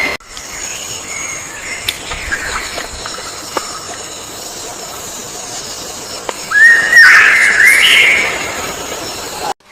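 Wild birds calling: scattered short chirps over a steady hiss, then a louder warbling call, rising and then held, about two seconds long, around seven seconds in. The sound cuts off abruptly near the end.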